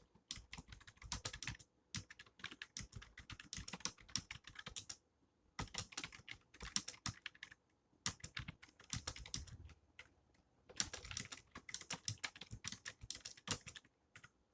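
Fast typing on a Logitech K230 wireless keyboard's membrane keys: quick runs of light key clicks broken by short pauses.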